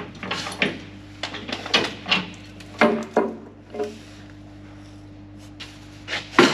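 Metal clinks and knocks of hand tools against the beater drum bearing and its housing on a combine as the bearing is worked loose, several sharp clicks a second for the first few seconds. A steady low hum follows, then one loud knock near the end.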